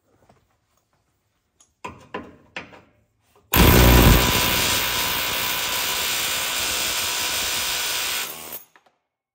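Pneumatic air hammer with a chisel bit running in one continuous burst of about five seconds, starting abruptly after a few light metal knocks, working to punch parts out under a truck's front axle.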